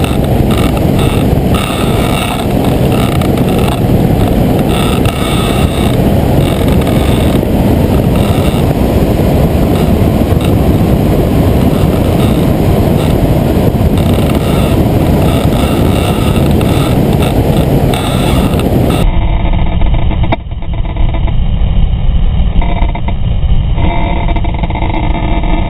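Loud wind rushing over the microphone mixed with the running engine of a flex-wing ultralight trike as it lands and rolls out on the runway. The sound turns abruptly duller about three quarters of the way in.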